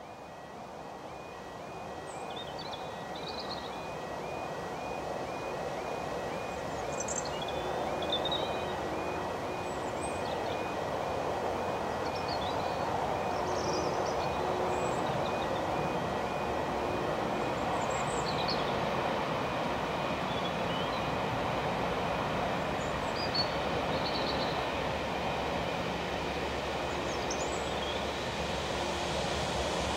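An approaching train, its rumble growing steadily louder throughout. A level crossing alarm sounds a quickly repeating warning tone through the first half, and birds chirp now and then.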